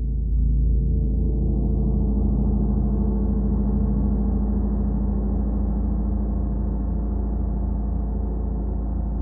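A 40-inch Wuhan feng gong sounding a low, sustained wash of many tones. The sound swells about a third of a second in, and its higher overtones bloom upward over the next couple of seconds, then hold with an even pulsing beat.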